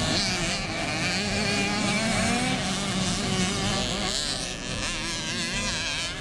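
Several small motocross bikes racing on the dirt track, their engines revving up and down so that the pitches overlap and waver.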